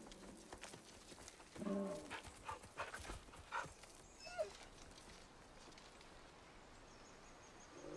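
A dog makes faint, short calls: a low call about two seconds in, then a few light clicks and knocks, and a brief higher call that bends in pitch just after four seconds.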